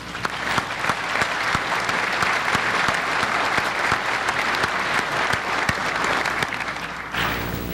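Audience applauding, many hands clapping in a dense patter that fades out near the end.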